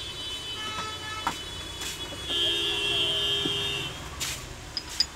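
A few sharp metal clinks of steel crimping-die segments being handled and seated on an A/C hose crimping press. A loud, steady, high-pitched horn-like tone sounds for about a second and a half midway.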